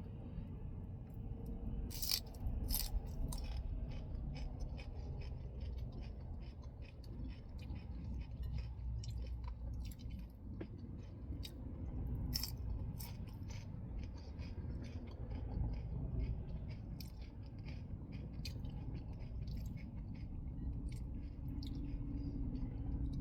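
A person chewing lettuce-leaf tacos filled with mushroom and avocado, close to the microphone: crisp crunching and wet mouth clicks, loudest about two seconds in and again near the middle, over a steady low rumble.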